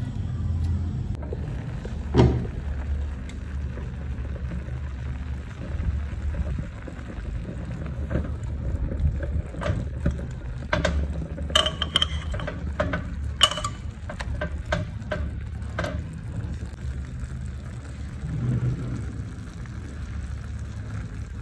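Chicken cooking in dark sauce in a clay pot, with a steady low rumble and sizzle. Sharp clicks of metal tongs and utensils against the pot and bowl come through it: a loud clink about two seconds in and a run of clicks in the middle.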